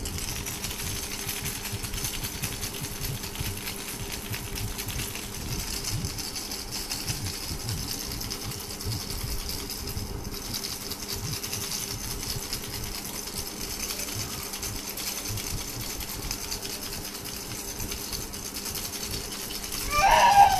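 Baby rattle shaken rapidly and without pause, a dense, fast, even rattling that briefly dips about halfway through. Near the end a baby lets out a short, wavering cry-like wail.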